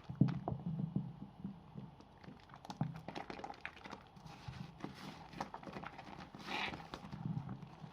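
Wet bar soap, small soap remnants pressed together, being lathered and rubbed in the hands: irregular squelching clicks and pops with soft rubbing, and a short hiss of foam about six and a half seconds in.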